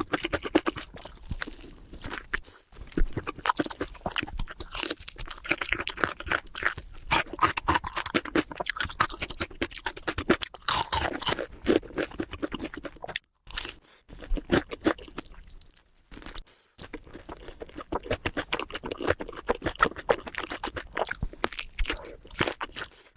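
Close-miked eating: rapid, crisp crunching and chewing of food, with a few short pauses.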